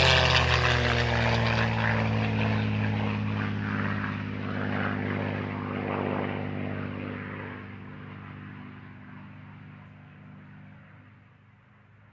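WW2 Supermarine Spitfire flying low overhead, its piston engine and propeller drone dropping in pitch as it passes. The drone then fades steadily away into the distance.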